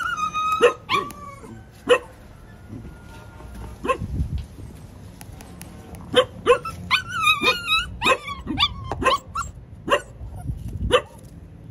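Black-and-tan puppy crying in distress at being shut in a cage: short high whines and yelps that rise and fall in pitch. The cries ease off for a few seconds near the start, then come thick and fast again about halfway through.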